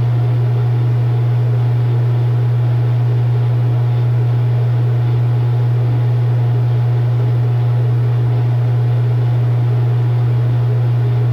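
A loud, steady low hum on a phone line while the call is on hold, unchanging throughout.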